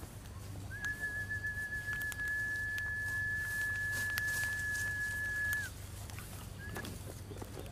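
A high, steady whistle-like tone held at one pitch for about five seconds, dipping slightly as it stops, with a shorter note of the same pitch near the end.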